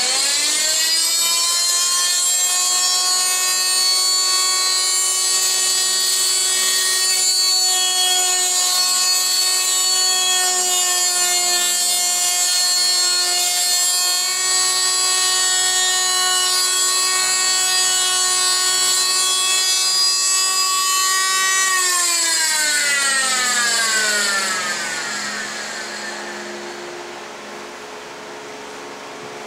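Electric power tool motor spinning up quickly, then running at a steady high pitch with small dips under load for about twenty seconds. Near the end it shuts off and winds down over several seconds.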